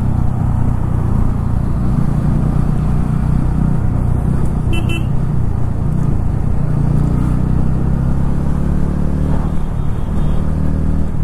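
TVS Ronin 225cc single-cylinder motorcycle engine running steadily under way, with a low drone and road noise throughout. A short horn beep sounds about five seconds in.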